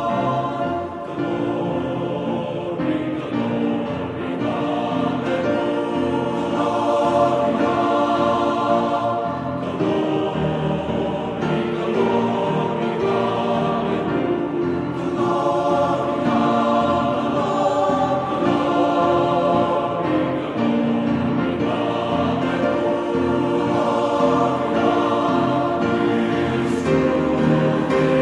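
Background music with choral singing, sustained voices layered over one another and running without a break.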